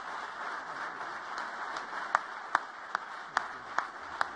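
Audience applauding. About halfway through, sharp single claps from close by start to stand out, about two and a half a second.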